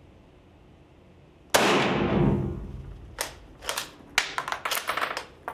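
A Spanish Mauser FR8 bolt-action rifle in 7.62×51mm fires one shot, a reduced 13-grain Trail Boss load behind a coated lead bullet, about one and a half seconds in. The report rings on in the room for about a second. Then comes a quick run of metallic clicks as the bolt is worked to eject the case and chamber the next round.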